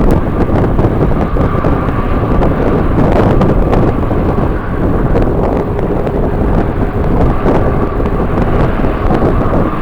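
Strong gusty wind buffeting the microphone with a dense, fluctuating rumble. A faint steady whine from jet aircraft engines sits underneath.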